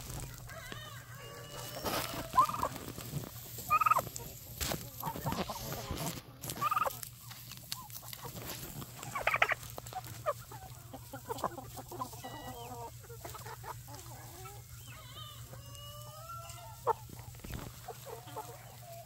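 Flock of chickens clucking and calling, many short calls scattered throughout, with the loudest few seconds in.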